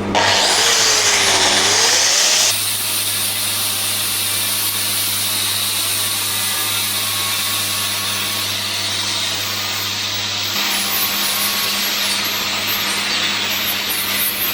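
Angle grinder cleaning up a freshly welded steel frame: a steady grinding noise. The motor's pitch dips and then rises over the first two seconds as it is loaded against the metal, with an abrupt change in the sound about two and a half seconds in.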